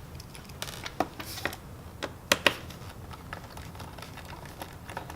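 Small sharp clicks and taps of a screwdriver and screws as the last screws are taken out of a laptop's bottom cover, a cluster of them in the first half.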